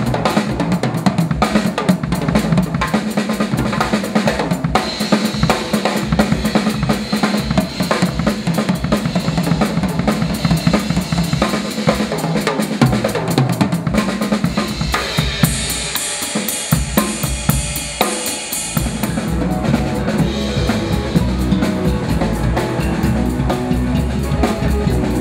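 Live band playing, with the drum kit up front (kick, snare and rim hits) over a moving bass line.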